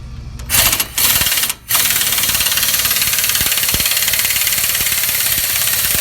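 Impact wrench hammering in two short bursts, then running steadily for about four seconds, driving threaded bolts against the knuckle to press out a seized front wheel hub assembly.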